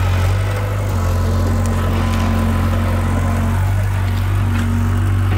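Diesel engine of a Caterpillar tracked excavator running with a steady low hum as the machine crawls forward and pushes earth with its dozer blade.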